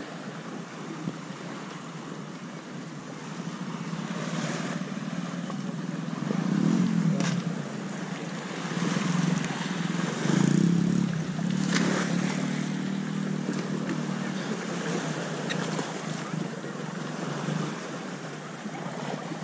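A small boat's engine running steadily, with sea and wind noise on the microphone and a couple of brief splashes or knocks.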